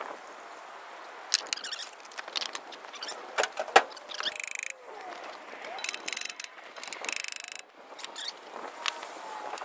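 Metal knocks, clanks and scrapes as a Dodge Power Wagon's bell housing is worked loose and pulled back from the engine, with two short harsh rasps, the second a rapid rattling grind, about halfway through.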